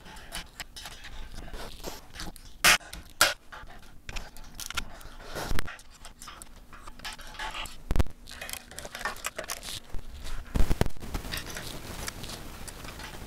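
Rapid, irregular clicks, knocks and scrapes of a hand wrench working the joint bolts of an aluminium 80/20 extrusion frame, sharpest knocks a few times through the stretch.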